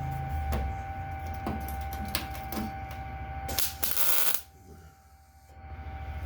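Small welder tack welding a sheet-steel patch panel. A steady hum runs under several short crackling arc strikes, then comes one longer crackling tack of about half a second a little past the middle. After that the hum drops away for about a second before coming back.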